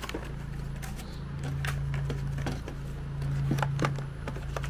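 Stiff paper and plastic packaging being torn and peeled off a knife by hand: scattered crackles and rips, over a steady low hum.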